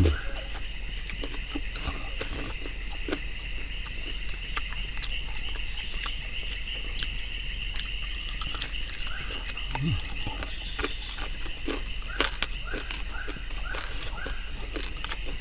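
A chorus of insects: a high, rapidly pulsed chirping at about five pulses a second over a continuous drone, with scattered small clicks and knocks.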